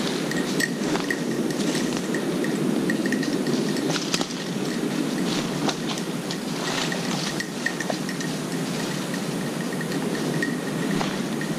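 Footsteps crunching through dry leaf litter and brushing through undergrowth, with scattered twig crackles. A faint high ting repeats about twice a second early on and again in the second half.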